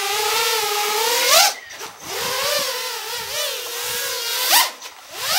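FPV quadcopter with DYS Mars 2306 2400 kV brushless motors and Gemfan 5152 props in flight: a motor-and-propeller whine whose pitch wavers with throttle. It climbs sharply and drops away about one and a half seconds in, comes back, and climbs and dips again near the end.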